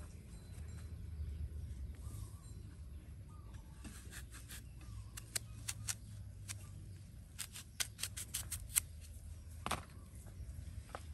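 Kitchen knife cutting through a fresh apple: a run of short, crisp clicks for several seconds, then one louder click near the end.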